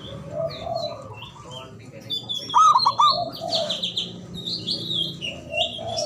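Zebra dove (perkutut) cooing: a loud phrase of three quick rising-and-falling notes about two and a half seconds in, over the steady chirping of other small birds.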